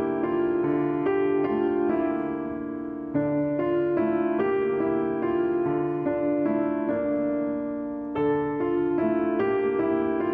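Piano music: a gentle piece played in steady repeating phrases of broken chords, the level dipping briefly between phrases about three and eight seconds in.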